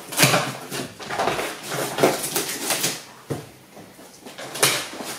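Packing tape on a cardboard box being slit with a blade: a series of scraping, tearing strokes, then quieter cardboard handling as the flaps are opened, with one more louder rustle near the end.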